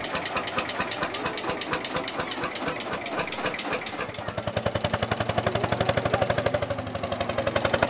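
Lanz Bulldog tractor's single-cylinder two-stroke hot-bulb engine running with a rapid, even knocking beat. About four seconds in it gets louder and a steady drone joins in as the tractor pulls away under load.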